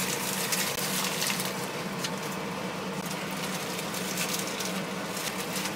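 Foil and paper sandwich wrapper crinkling as it is unwrapped, a quick irregular patter of small crackles over a steady low hum in the van cab.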